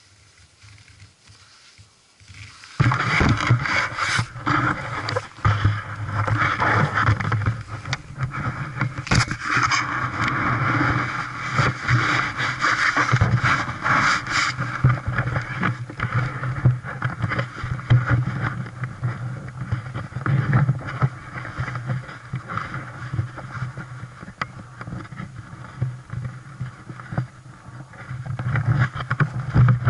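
Two-stroke Polaris Indy Sport 340 snowmobile engine running at a steady idle, coming in suddenly about three seconds in, with irregular rubbing and knocking from the helmet-mounted camera over it.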